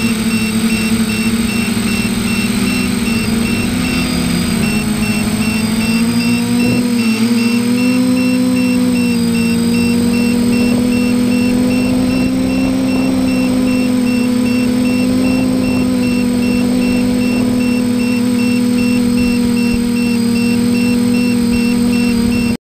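Multirotor drone's electric motors and propellers humming in flight, heard from the onboard camera. The pitch wavers up and down for several seconds early on, then holds steady, and the sound cuts off suddenly at the very end.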